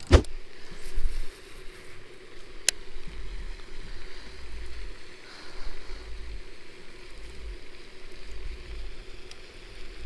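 Wind buffeting the microphone in uneven low gusts, over a faint steady hum. A sharp knock comes right at the start and a single click about three seconds in.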